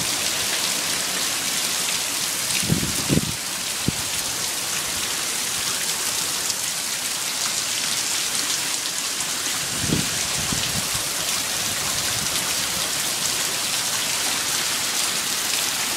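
Heavy hurricane rain falling steadily, a constant hiss. A few brief low thumps come about three seconds in and again around ten seconds.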